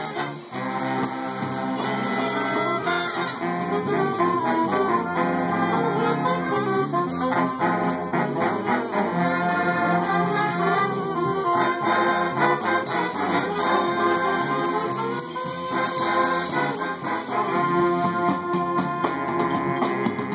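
Swing big band of saxophones, trombones and trumpets playing a swing tune together.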